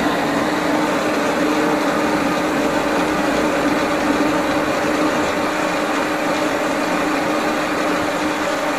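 Electric hand blender running steadily in a pot of sauce, its motor holding an even hum as it grinds up lentils, tomatoes and potatoes.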